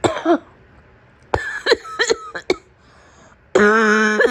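A sick woman coughing: a cough right at the start, then a quick run of four or five short voiced coughs. Near the end comes a held, steady voiced sound.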